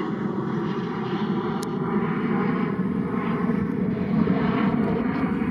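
Airbus A321 airliner's jet engines as it climbs away after takeoff: a steady, deep jet noise.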